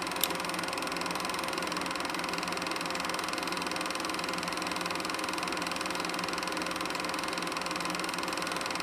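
Film projector running: a steady, fast mechanical clatter, with one sharp click just after the start.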